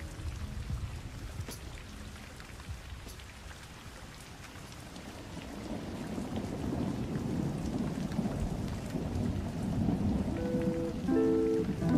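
Steady rain-like hiss with a deep rumble, like thunder, swelling from about halfway. Music notes come back in near the end.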